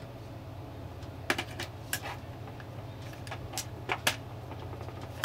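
Irregular sharp clicks and knocks of a battery wall clock being handled and turned over, its case and wire retaining springs clattering, about nine in all, over a steady low hum.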